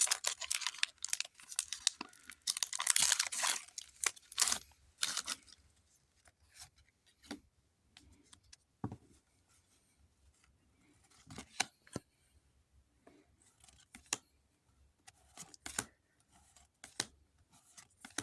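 Pokémon booster pack's foil wrapper being torn and crinkled open by hand for the first few seconds, then sparse light clicks and taps as the cards are handled.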